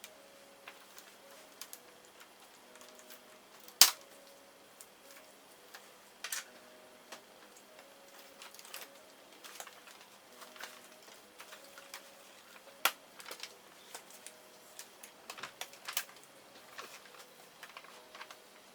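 Irregular clicks and taps of small plastic and metal laptop parts and tools being handled during disassembly, with a sharp knock about four seconds in and another near thirteen seconds.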